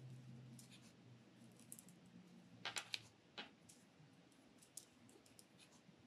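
Near silence with faint small clicks from hands working a metal crochet hook through yarn, a couple of sharper clicks about halfway through.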